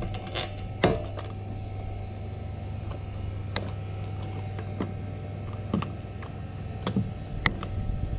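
Cutting pliers snipping and tugging the wiring on a refrigerator's sheet-metal cabinet: scattered sharp clicks and snaps, the loudest about a second in, over a steady low hum.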